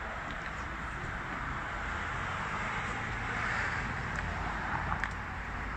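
Steady outdoor city ambience: a continuous hiss of distant traffic, with a couple of faint clicks.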